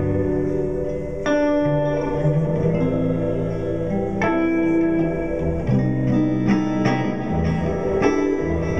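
Live band playing a slow instrumental passage: sustained keyboard and guitar chords changing every second or two over held bass notes, with no singing.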